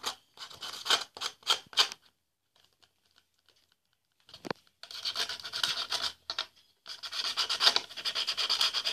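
Sandpaper rubbed back and forth against a clothes clip to roughen its surface for gluing. First come a few separate scrapes, then a pause of about two seconds with a single click, then long runs of fast, continuous rubbing.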